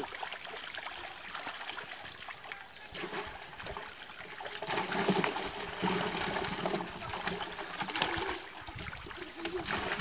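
Shallow pond water splashing and trickling around a net hauled into the shallows, as fish are picked out of it by hand, in irregular small splashes.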